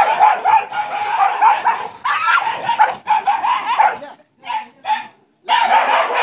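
Dogs barking and yelping excitedly, with high wavering cries, breaking off for about a second and a half around four seconds in before starting again.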